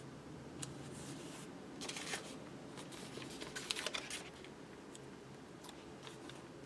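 Faint rustling and crackling of a paper sticker sheet being handled and a sticker peeled off its backing, in two short flurries about two and four seconds in, with a few scattered small clicks.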